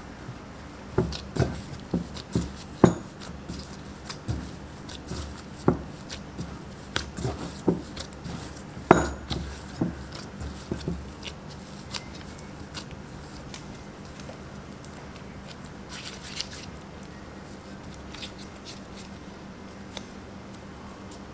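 Silicone spatula working a stiff mashed-potato and flour dough in a glass bowl, knocking and scraping against the glass every second or so for about the first ten seconds. Then gloved hands knead the dough, with soft squishing and the rustle of disposable gloves.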